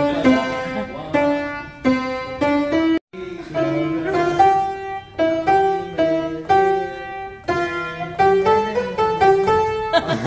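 An upright piano being played by hand: a tune of held notes over a lower accompaniment. The sound cuts out for an instant about three seconds in.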